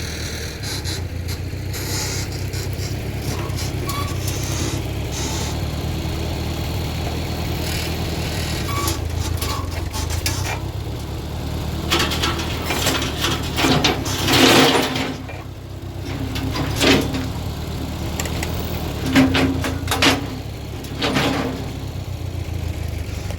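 Engine powering a sawmill, running steadily, with several short, louder noisy bursts over the top, the loudest about two thirds of the way through.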